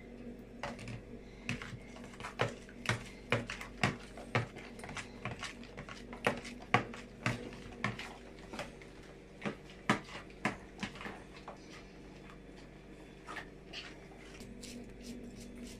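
Egg whisking by hand: a metal wire beater clicking and tapping against a plastic bowl of beaten eggs, irregular taps about twice a second that thin out about eleven seconds in.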